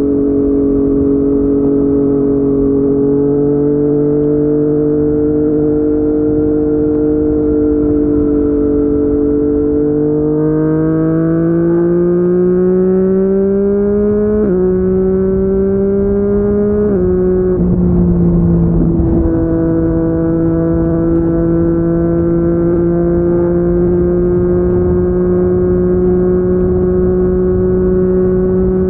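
Yamaha MT-09's inline three-cylinder engine through a Yoshimura R55 slip-on exhaust, cruising at a steady pitch. About ten seconds in it accelerates, the pitch rising, with two quick upshifts that each drop the pitch. It then settles into steady cruising again, creeping slowly higher.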